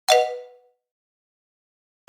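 A single struck metal percussion hit: one sharp clang with a bright, clashing ring that dies away within about half a second.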